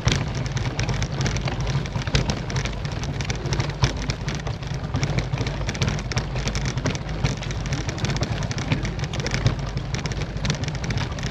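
Specialized Tarmac SL7 road bike rattling over rough cobblestones on a steep climb: a dense, irregular clatter of small knocks over a steady low rumble.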